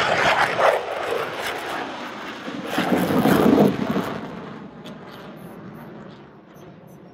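Jet roar of U.S. Air Force Thunderbirds F-16 Fighting Falcons flying past in formation. It swells near the start and again about three seconds in, then fades as the jets climb away.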